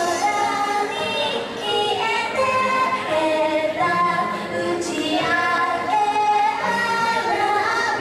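Song with a high female voice singing a stepping melody of held notes over light backing, with almost no bass under it.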